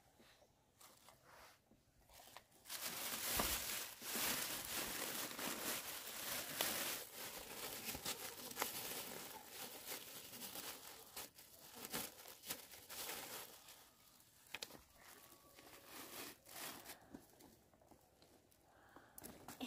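Rustling, crinkling noise of something dry being handled or torn, with scattered sharp clicks. It starts about three seconds in and fades to faint bits after about fourteen seconds.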